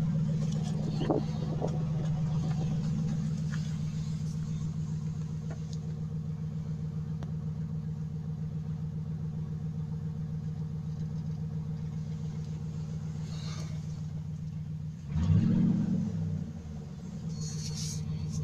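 Dodge Ram 1500's 5.7-litre Hemi V8 idling steadily, with one short rev of the throttle about fifteen seconds in. It runs fine, with a newly replaced belt tensioner.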